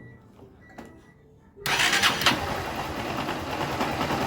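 Honda CG 160 Start's single-cylinder engine starting: it catches suddenly about a second and a half in and then runs steadily at idle, just after a new spring-loaded cam chain tensioner has been fitted.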